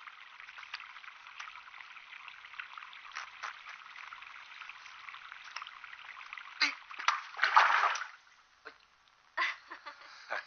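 Water trickling steadily out through a hole in a rice-field bank, with a few louder splashes about seven seconds in. The trickle stops about eight seconds in.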